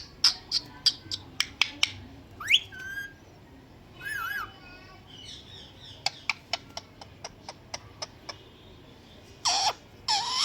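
Indian ringneck parakeet whistling and chattering, with a quick rising whistle and a warbling call. Two runs of short sharp clicks come first and again in the middle. A louder harsh call comes near the end.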